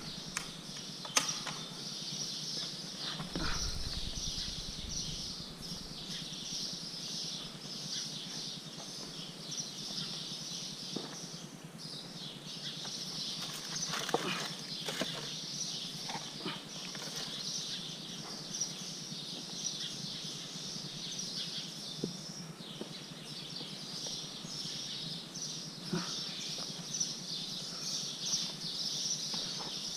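Scattered knocks, scrapes and footfalls on rock as people scramble through a rocky cave sinkhole, over a steady high-pitched hiss.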